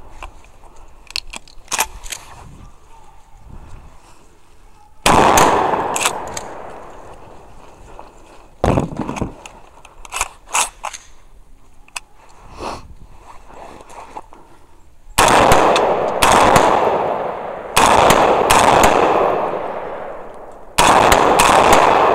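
Loud gunshots at irregular intervals, about six heavy shots each followed by a long echoing tail, with fainter sharp cracks between them.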